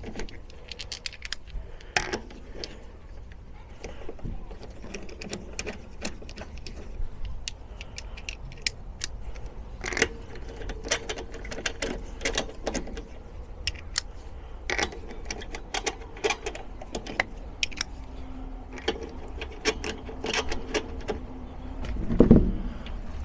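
Steel wheel bolts being threaded into the hub by hand with a 17 mm socket: irregular light metallic clinks and taps, scattered through the whole stretch.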